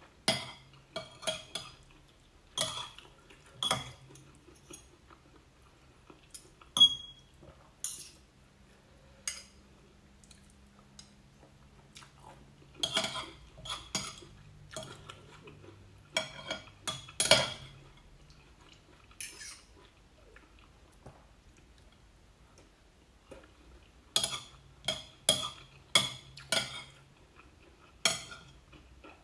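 Metal fork and spoon clinking and scraping against a ceramic plate as noodles are scooped up, in scattered clusters of sharp clinks with quiet gaps between.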